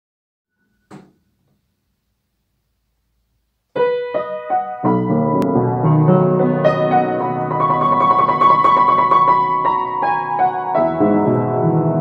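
Near silence for the first few seconds apart from a faint click about a second in, then piano-like keyboard music begins: a few single notes, building within a second into a fuller melody with chords.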